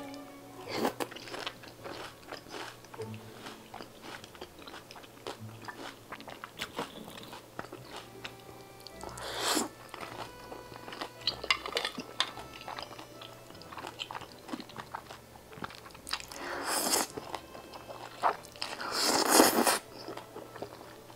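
Close-up eating sounds: crunchy bites and chewing of grilled beef large intestine, with loud slurps of carbonara buldak noodles about nine and a half seconds in and again twice near the end.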